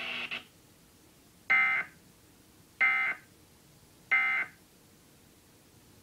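Emergency Alert System end-of-message signal played through a TV speaker: three short, harsh digital data bursts (the SAME "NNNN" code), about 1.3 seconds apart. It marks the end of the test tornado alert.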